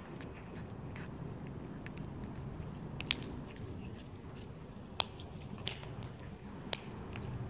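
A cat chewing and biting on a piece of food, with several sharp clicks in the second half, over a steady low background rumble.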